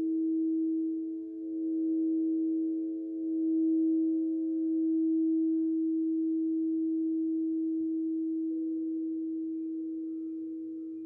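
Singing bowl ringing with one strong steady tone and fainter overtones. Its loudness swells and dips a few times, then it slowly fades over the last several seconds.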